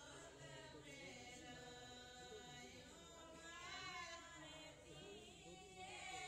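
Faint singing by several voices, in long held, chant-like lines with slow rises and falls in pitch.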